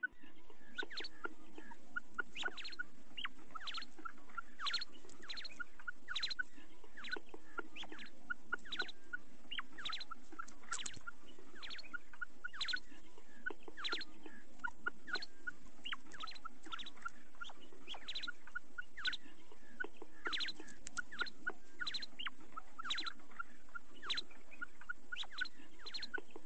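Female common quail calling: a rapid, uneven series of short, sharp calls, two or three a second, over a steady low background noise.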